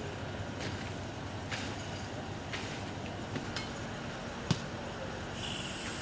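Ambient noise at a structure fire: a steady low rumble with a hum under it and scattered faint clicks. A single knock comes about four and a half seconds in, and a high steady tone starts near the end.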